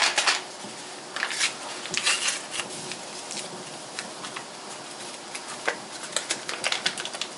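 Soft rustling and scattered small ticks from a packet of powdered pectin being handled and shaken out into a pot of crushed strawberries, in two spells about a second in and again near the end.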